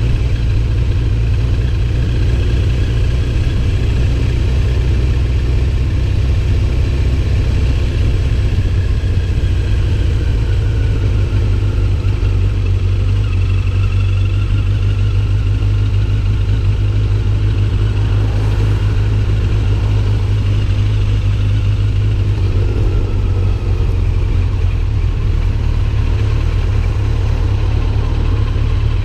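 Car engine running steadily, a continuous low rumble with no break.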